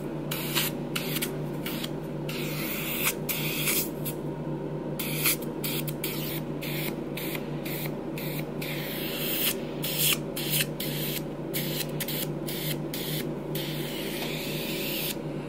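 Hydrofacial machine running: a steady pump hum under the hiss of the handpiece's suction as it is drawn over the skin, vacuuming while it infuses a glycolic and salicylic solution. The hiss breaks off briefly many times.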